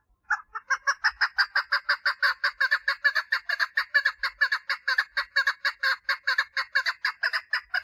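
Female chukar partridge giving her mating call: a rapid, even series of clucking notes at about five a second, kept up without a break for nearly eight seconds.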